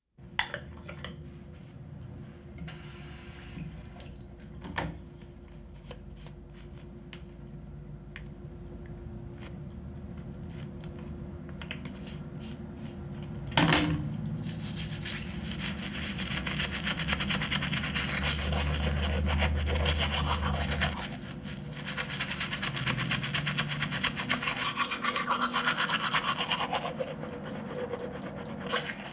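Brushing-teeth sequence. The first half is small clicks and handling sounds. A sharp sound comes about halfway, and after it a toothbrush scrubs teeth in rapid back-and-forth strokes.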